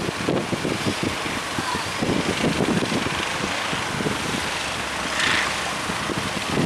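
Strong wind buffeting the microphone over a steady rushing noise, with a brief hiss about five seconds in.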